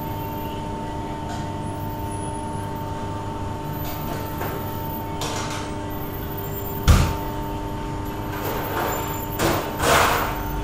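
Steady mechanical hum holding several constant tones, with a single sharp thump about seven seconds in and a few short noisy bursts near the end.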